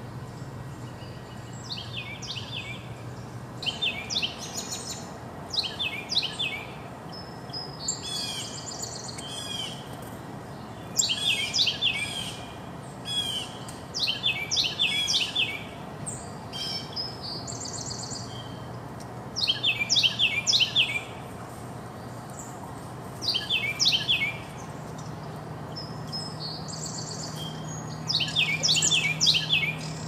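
Small songbirds calling around a backyard seed feeder: a dozen or more short bursts of rapid, high chirping notes, each burst about a second long and coming every couple of seconds. A faint steady low hum sits underneath.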